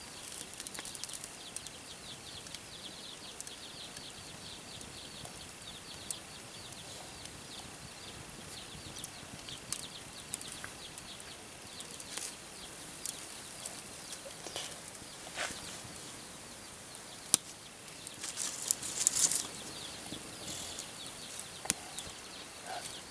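Outdoor ambience: a steady, high, quickly pulsing chirring, with scattered clicks, one sharp click about 17 seconds in, and a burst of rustling just after.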